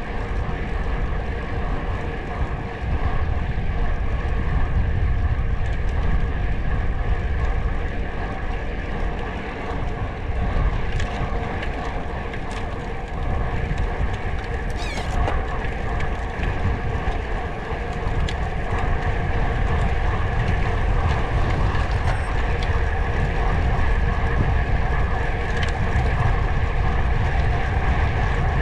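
Heavy wind rumble on the microphone over the steady drone of a vehicle moving at an even speed.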